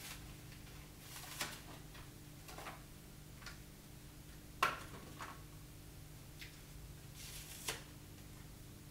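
Faint, scattered rustling and scraping of corrugated cardboard protective sheets being peeled off a tiller's handlebars and set down, with one sharper knock about halfway through.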